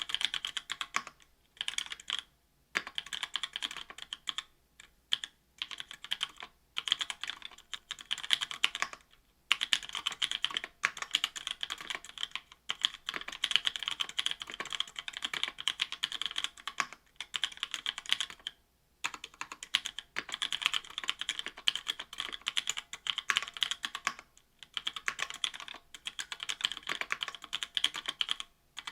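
Fast typing on a mechanical keyboard fitted with stock Kailh Pro Burgundy linear switches, an aluminium plate and GMK keycaps. The keystrokes clack in rapid runs, with short pauses between them.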